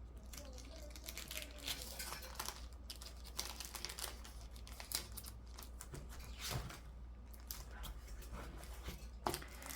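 Sticker sheets and planner paper being handled: irregular soft rustling and crinkling with scattered small ticks, as stickers are peeled off and placed.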